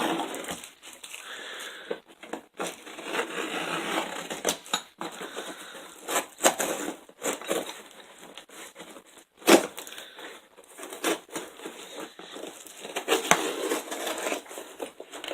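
A cardboard shipping box being opened and unpacked by hand: packing material crinkling and tearing, with scattered knocks and clicks and one sharper knock about nine and a half seconds in.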